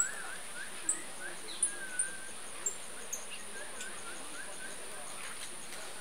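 Wetland ambience: a steady, high-pitched insect drone, with sharp short chirps and wavering bird calls over it during the first few seconds.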